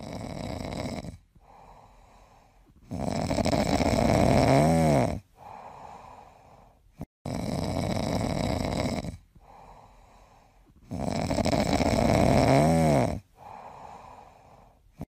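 A sleeping cat snoring loudly in slow cycles: a long rasping snore about every four seconds, each ending in a wavering pitch, with quieter breaths between.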